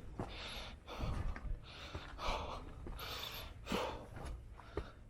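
Heavy, hard breathing of a hiker climbing a steep trail, a breath about every second, with a few sharp scuffs or clicks in between.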